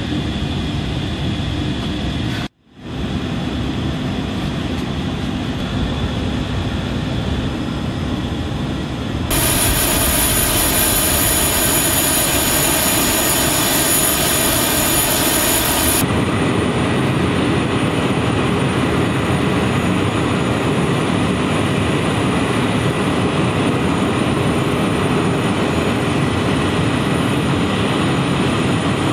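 Airbus A400M's Europrop TP400 turboprop engines running steadily. A high-pitched turbine whine stands out for several seconds in the middle. The sound cuts out briefly near the start and changes abruptly twice.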